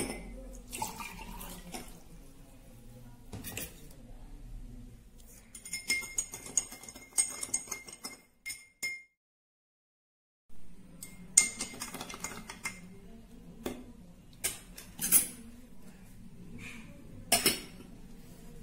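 Metal spoon clinking and tapping against a drinking glass while water is poured and yeast is mixed in, broken by a second or two of dead silence about halfway through.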